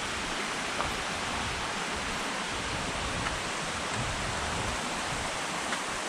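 Small rocky creek rushing over stones, a steady even rush of water, with a couple of faint taps.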